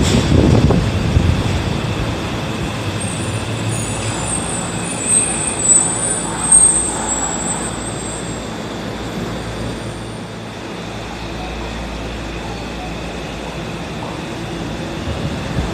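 Tokyo Metro Marunouchi Line subway train at an underground platform: it rumbles as it moves past in the first second or so, then a steady station hum follows while it stands, with a high hiss for a few seconds and a few short clanks. The low rumble builds again at the very end as a train starts moving.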